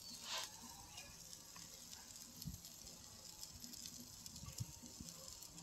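Chicken sizzling faintly on a charcoal grill, a soft, even hiss with a brief louder crackle just after the start and a few soft low knocks.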